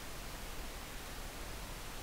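Steady faint hiss with a low hum underneath: the noise floor of an open microphone, with no distinct event.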